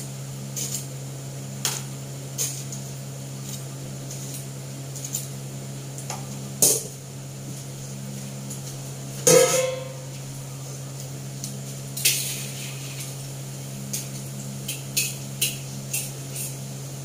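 Metal kitchenware knocking and clinking, with one loud metal clang and a short ring about nine seconds in, then quick spatula taps against the wok near the end, over a steady low hum.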